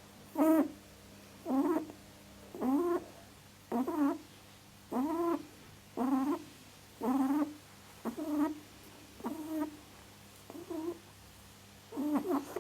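A small animal crying repeatedly, about one short call a second, each call wavering and falling in pitch; the last few calls are fainter.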